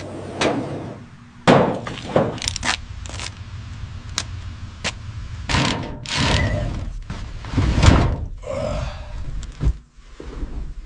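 Irregular knocks, thuds and clattering of objects being handled and struck, with longer scraping or rubbing sounds about halfway through and again near the end.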